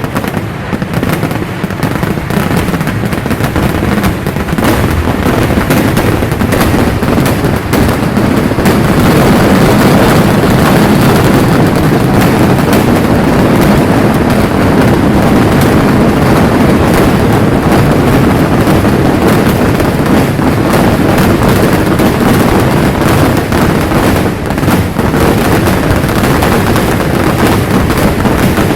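Vedikettu fireworks going off in a dense, unbroken barrage, explosions so close together that they merge into one continuous loud rumble, growing denser and louder about eight seconds in.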